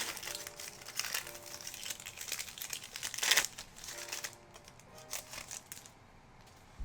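Plastic wrapper of a Panini Prizm football card pack crinkling as it is handled and torn open, with a sharp loud crinkle a little past three seconds in. The crinkling dies down about four and a half seconds in. Quiet background music plays underneath.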